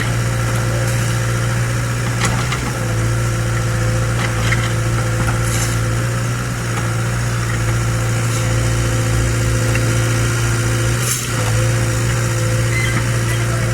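Excavator's diesel engine running steadily with a deep, even hum, with a few short knocks over it and a brief dip in the sound about eleven seconds in.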